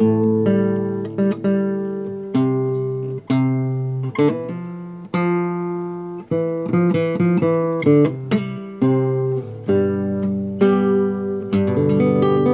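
Acoustic guitar playing: chords and notes plucked and left to ring, a new one struck about once a second.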